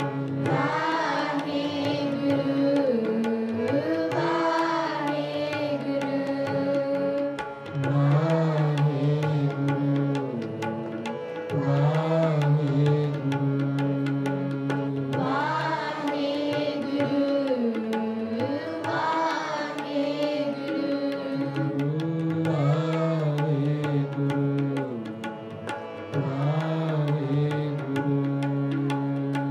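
Sikh kirtan: a man singing devotional verses in repeated phrases to his own harmonium, with tabla accompaniment.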